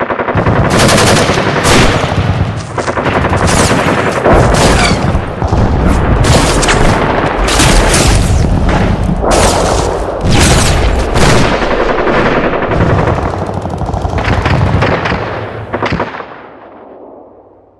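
Gun battle sound effect: dense, continuous automatic gunfire with overlapping bursts of shots. It fades away over the last couple of seconds.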